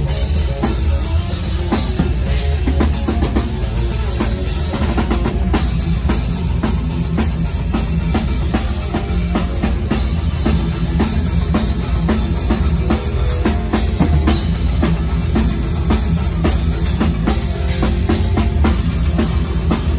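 Live technical death metal band playing at full volume, with the drum kit loud and fast drum strikes over heavy bass throughout.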